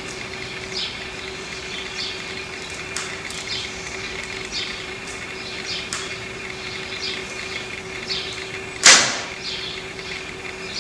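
A Japanese longbow (yumi) shot: one sharp snap of the bowstring at release, about nine seconds in, dying away within half a second. Birds chirp steadily throughout.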